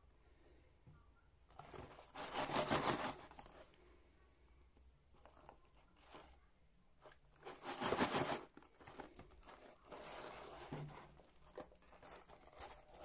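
Gloved hands handling and turning over a cardboard chocolate box: rustling, scraping packaging noise, loudest in two spells about two and eight seconds in, with lighter handling noise between.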